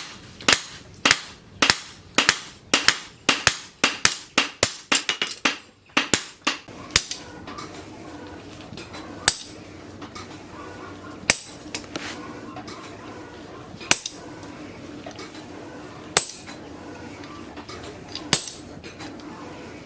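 Blacksmith's hammer striking steel on an anvil, each blow ringing. A quick run of strikes comes about two a second, then after about seven seconds single blows every two seconds or so over a steady low hum.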